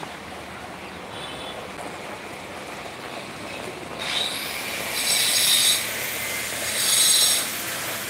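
Steady heavy rain, with two loud high-pitched squeals, each under a second long, about halfway through and near the end.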